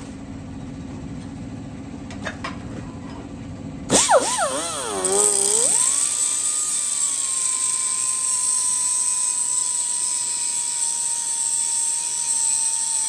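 A low steady hum with a few clicks, then about four seconds in a high-speed grinder starts up. Its whine wavers in pitch as it spins up, then settles into a steady high whine with a strong hiss.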